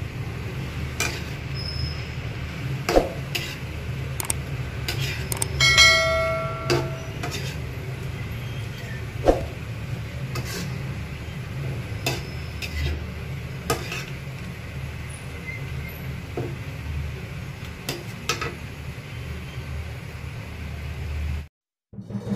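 Metal spatula scraping and knocking against a wok while shrimp are stirred in sauce, with scattered clicks over a steady low hum. About six seconds in, one clang rings out briefly like a bell. The sound cuts off near the end.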